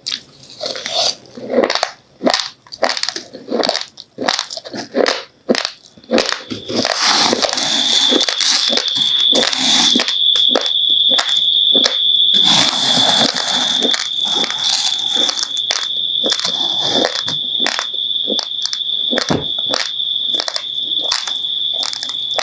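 Close chewing of raw, uncooked rice: rapid crisp crunches as the hard grains are bitten and ground. About seven seconds in, a steady high-pitched whistle-like tone starts and continues under the crunching.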